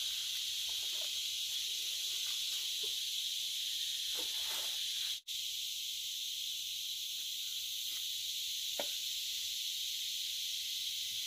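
Steady high-pitched drone of an insect chorus in the mangrove, with a few faint soft scrapes of hands digging in mud; the sound cuts out for an instant about five seconds in.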